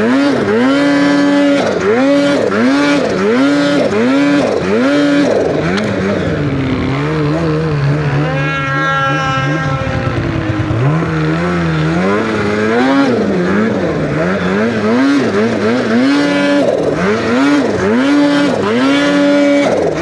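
Turbocharged two-stroke engine of a 2023 Polaris Khaos Boost snowmobile revving up and down in quick throttle blips, about one and a half a second. In the middle it holds a steady pitch for a few seconds, then the blipping starts again.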